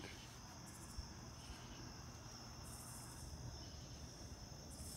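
Faint night insect chorus: a steady high cricket trill, with brief louder buzzing from other insects about three seconds in and again near the end.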